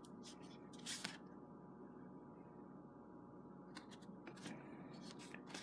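Sheets of handmade paper with ink drawings being handled and swapped: a few faint, short rustles and taps, the clearest about a second in and several more in the last two seconds, over a quiet room hum.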